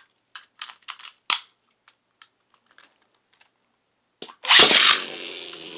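Hard plastic clicks of a Beyblade launcher being handled. About four and a half seconds in comes a sudden loud rasp, then a whir that fades, the sound of the launcher's gear being spun.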